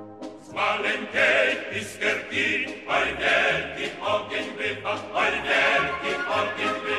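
Choir singing a Polish patriotic song set to a krakowiak folk melody, with instrumental accompaniment keeping a steady beat underneath; the voices come in about half a second in.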